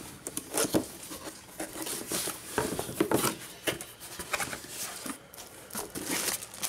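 Cardboard box being opened by hand: flaps pulled back and handled, with rustling and crinkling of the plastic wrap around the router inside, in irregular scrapes and taps.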